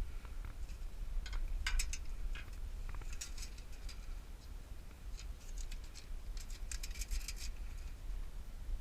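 Dry bird-nesting material crackling and scratching in irregular short bursts as it is pulled out of a house soffit, over a steady low rumble.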